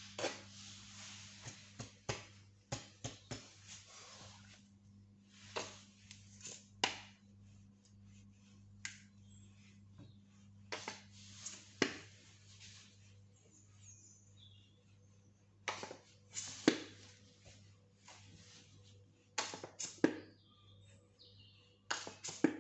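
Irregular rustles, light knocks and clicks of hands working with food and paper towels on a kitchen counter, over a low steady hum.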